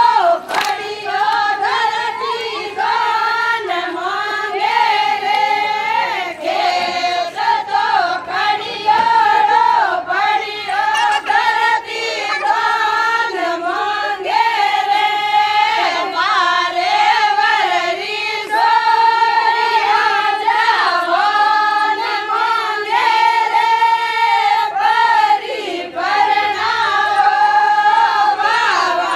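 A group of women singing a Marwari Fagan (Holi) folk song together in chorus, in repeated sung phrases.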